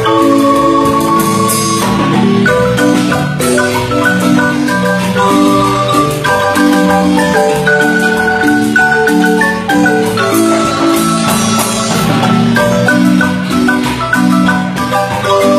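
Marimba music: low bass notes, middle harmony and a higher melody sounding together, with many notes held on as sustained rolls.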